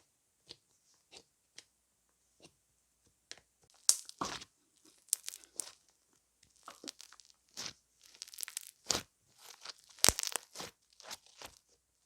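Irregular crisp crunching and crackling, a few faint clicks at first, then thick and busy from about four seconds in, with sharp snaps at about four and ten seconds.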